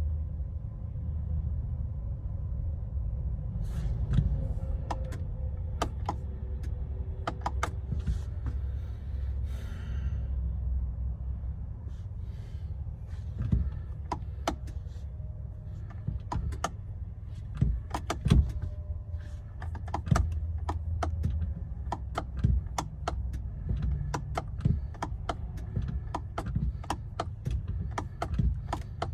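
Scattered sharp clicks and knocks, irregular and coming more often in the second half, over a steady low rumble.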